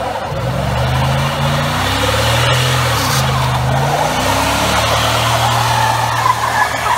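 Dodge Dakota pickup doing a burnout: the engine held at high revs, its pitch wavering up and down, while a rear tyre spins and squeals on the pavement.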